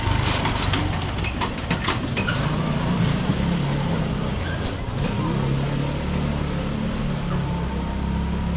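City street traffic: a motor vehicle's engine running steadily with a low hum, over general street noise, with a few sharp ticks early on.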